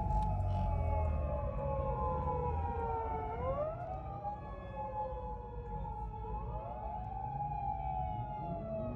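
Police sirens wailing, their pitch sliding slowly down and then back up about every three seconds, over a low engine rumble.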